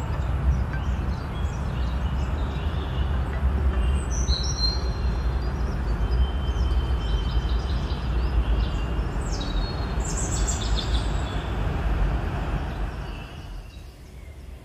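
Birds chirping in short, high calls over a loud, steady low rumble that eases off near the end.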